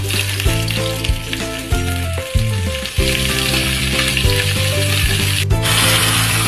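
Bitter gourd (karela) frying in hot oil in a pan, a steady sizzle that grows brighter near the end, under background music.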